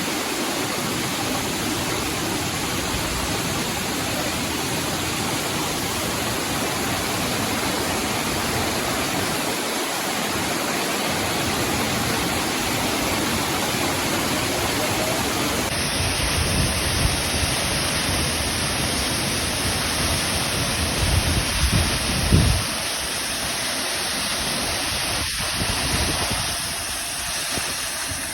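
Waterfall rushing: a steady, dense roar of falling water. About halfway through the sound changes character, and low rumbling gusts come and go for several seconds after that.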